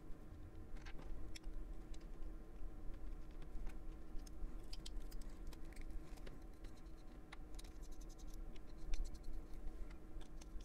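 Fountain pen sections being unscrewed and handled, with faint scratching of the threads and scattered small clicks of the pen parts knocking together, over a low steady hum.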